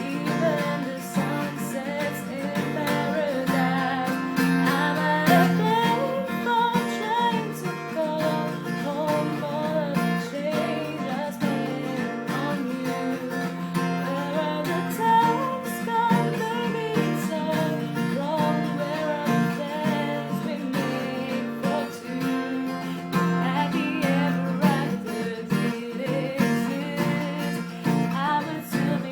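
Woman singing a pop song, accompanied by a strummed acoustic guitar.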